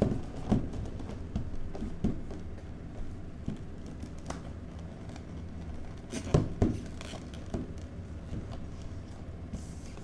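Cardboard box handled on a wooden tabletop: scattered knocks and thumps as it is pushed, lifted and turned, the loudest a short cluster about six seconds in, over a steady low room hum.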